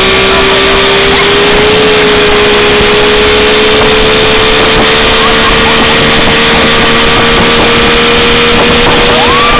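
Evinrude 70 hp outboard motor running steadily at speed as the boat tows a tube, its tone rising slightly about two seconds in, under a dense hiss of wind and rushing wake water.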